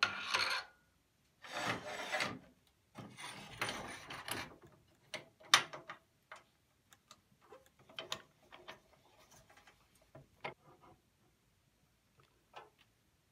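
Wood lathe being set up by hand: the spur drive pushed into the headstock, then the cast-iron tool rest slid along the metal bed and clamped. Several stretches of scraping and rubbing in the first four or five seconds, then scattered clicks and knocks.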